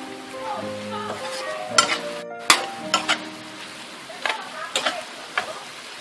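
Squid and shrimp stir-fry sizzling in a wok over high heat, with a metal spatula scraping and knocking against the pan several times.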